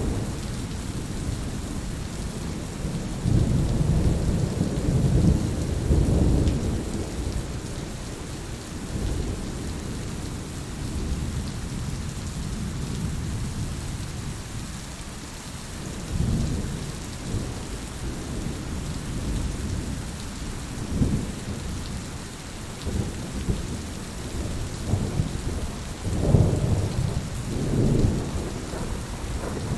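Steady rain with rolling thunder: a constant hiss of rainfall, with low rumbles swelling and fading several times, the heaviest near the start and near the end.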